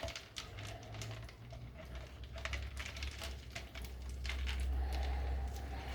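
Stirring lye into ice water in a container: irregular light clicks and taps of the ice cubes and the stirring utensil against the container.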